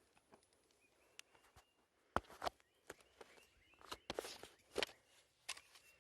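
A few scattered light knocks and clicks, loudest about two seconds in, with the small engine shut off: footsteps and handling of the gear.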